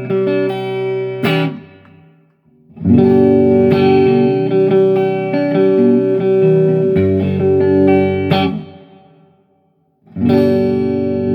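Electric guitar played in short passages of chords and single notes, a sound check of the guitar's wiring; the playing stops and rings out to silence about two seconds in and again near the end before starting up once more.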